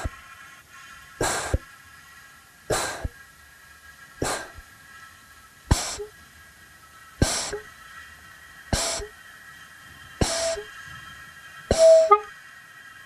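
Minimal electronic dance score: a short hissing hit about every second and a half, eight times, over a steady high drone. A short low pitched note follows some of the hits and gets louder near the end.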